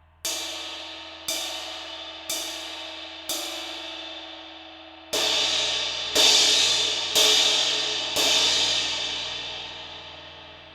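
Diril Primitive 18-inch dry, dark Turkish crash cymbal struck eight times, about once a second. The first four hits are softer. The last four are harder crashes, and the final one is left to ring out and fade.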